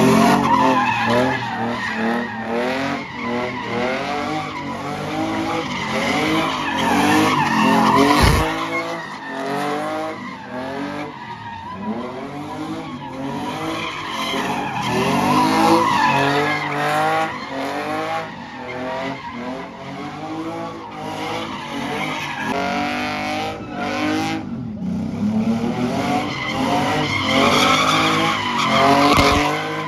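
BMW E46 3 Series coupe's engine revving up and down again and again while doing donuts, its rear tyres squealing and skidding on the asphalt.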